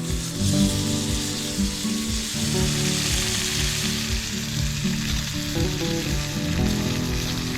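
Food frying in a pan, sizzling with a steady hiss, under background music with low notes.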